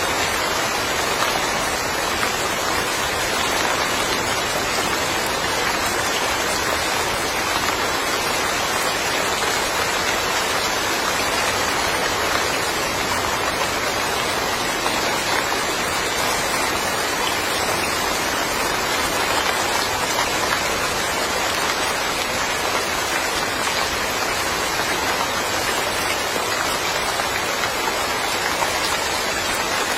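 Steady rain falling: a dense, even hiss with no distinct drips or other sounds standing out.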